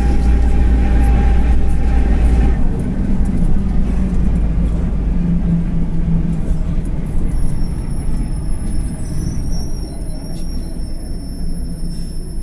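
Mercedes-Benz OF-1721 city bus running on the road, heard on board, with a deep drone that drops away about two and a half seconds in; the bus has a droning, worn bearing. The running then goes on more quietly, with a thin high squeal and a few clicks over it toward the end.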